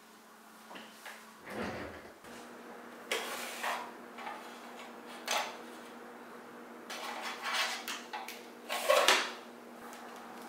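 Under-desk pull-out drawer sliding open and shut, with light knocks and rustling as a drawing glove and stylus are taken out of it. The sounds come as a string of short scrapes and knocks, the loudest near the end as the drawer is pushed closed.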